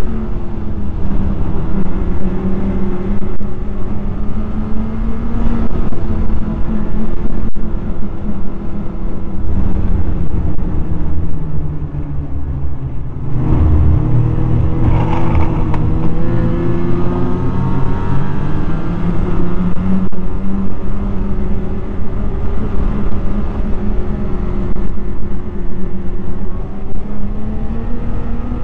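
Snowmobile engine running under way along a trail. Near the middle its pitch sags as the throttle eases off, then climbs again as it accelerates.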